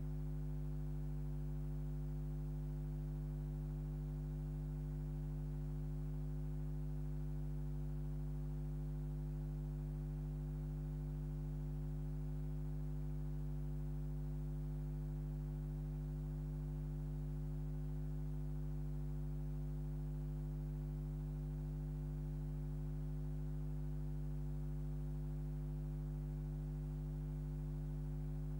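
Steady electrical hum: a low tone with several fainter overtones above it, unchanging throughout.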